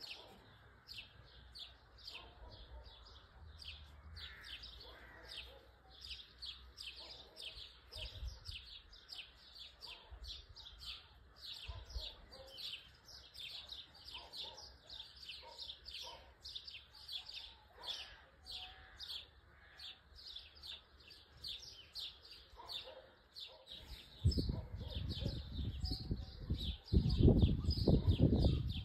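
A high chirp repeating evenly about three times a second, without a break. A loud low rumble starts about 24 seconds in and drowns everything else in the last few seconds.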